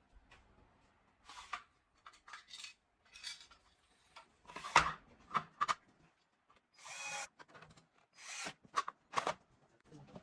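Hands working on computer parts during a PC build: a series of short scrapes, rubs and clicks, the loudest about halfway through. About 7 s in comes a longer rasping pull with a faint pitch to it.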